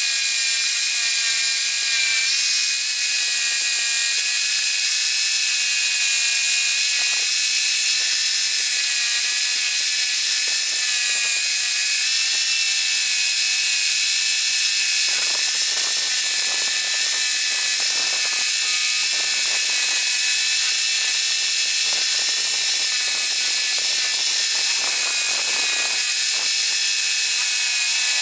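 Homemade scroll saw running while cutting wood: a steady high-pitched mechanical whine with a fast rattle from the reciprocating blade mechanism.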